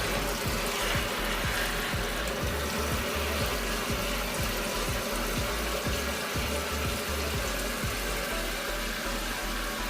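Water running steadily into the wash tub of a twin-tub portable washing machine as it fills for the rinse cycle.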